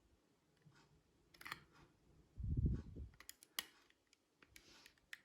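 Small handling clicks and taps of tools and fingers working the plastic parts and circuit board of a Ring Doorbell Pro as it is taken apart. There are sharp clicks at about one and a half and three and a half seconds in, and a dull bump near the middle.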